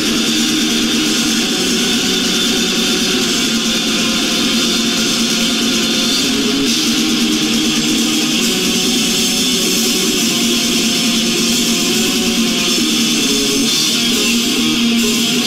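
Death metal band playing live: distorted electric guitars and bass guitar, loud and continuous without a break.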